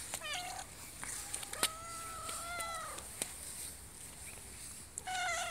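Calico cat meowing three times: a short meow at the start, a long drawn-out meow about two seconds in that dips at its end, and another meow near the end. A few sharp clicks fall between the meows.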